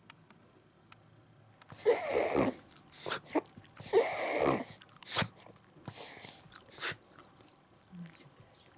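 A Shiba Inu's harsh, noisy snorting breaths, three of them about two seconds apart with small mouth clicks between, during a bout of reverse sneezing.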